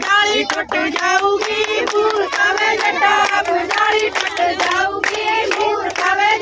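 Women singing a Punjabi boli over steady rhythmic hand clapping, the clapping accompaniment of giddha.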